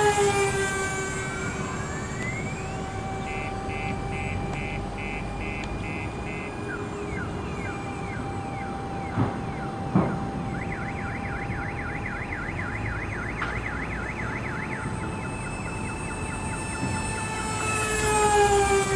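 Twin electric ducted fans of a GWS Me 262 RC model jet whining steadily in flight. The pitch drops as it passes close at the start and again near the end. Two sharp clicks come through in the middle.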